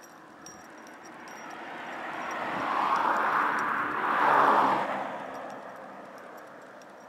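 A vehicle passing by: its tyre and engine noise builds steadily for a couple of seconds, is loudest about four seconds in, then fades away.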